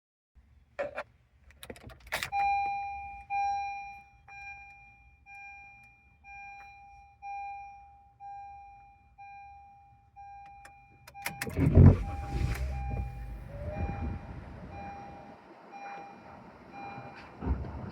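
2012 Honda Civic dashboard warning chime beeping steadily about once a second, a sign the car's electrics are switched on for testing the reconnected i-MID screen. A couple of clicks come before it starts, and a loud knock with rustling handling noise comes about halfway through while the beeping carries on more faintly.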